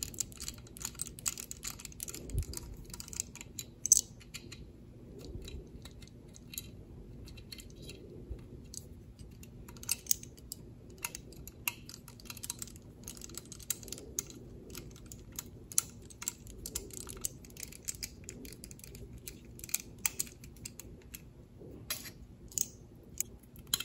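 Precision screwdriver with a tiny star bit unscrewing small screws from a circuit board, making faint, irregular little clicks and ticks as metal and board are handled.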